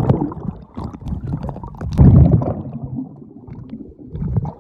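Muffled rumbling and gurgling of pool water and bubbles, heard with the microphone underwater. There is a louder surge about two seconds in.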